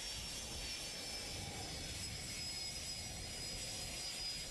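Business jet's engines running at low taxi power: a steady rush with a thin, high, unchanging whine.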